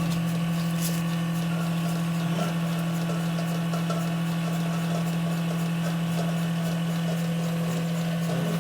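Steady machine hum at a constant pitch and even level, with fainter steady tones above it.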